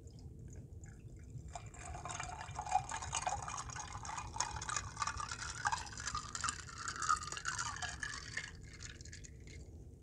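Juice poured from a glass bottle into a glass over ice cubes: a splashing pour whose pitch rises as the glass fills. It starts about a second and a half in and stops shortly before the end.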